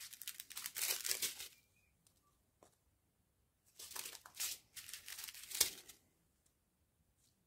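Thin plastic sachet strips of diamond-painting drills crinkling as they are handled and sorted. There are two spells, the first second and a half and again from about four to six seconds in, the second ending on a sharp click.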